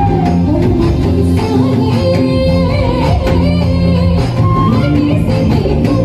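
Live band music played loud through a PA: a woman singing into a microphone over electric guitar, keyboard and a steady beat.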